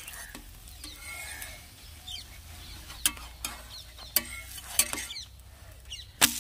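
Metal spatula scraping and tapping on a flat iron dosa griddle as an egg dosa is loosened and lifted, over a light sizzle. Several sharp clicks come in the second half, the loudest near the end.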